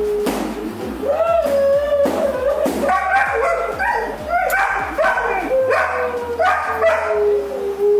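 German Shepherd puppy whining and yipping in a run of short, high cries, about two a second through the middle, ending on a longer drawn-out whine.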